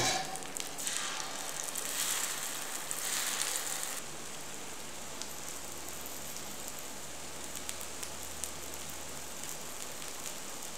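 Oil sizzling and crackling under batter cakes frying in a multi-well hoi krok pan. It is louder with swells over the first four seconds, then settles abruptly into a steadier, quieter hiss with scattered small pops.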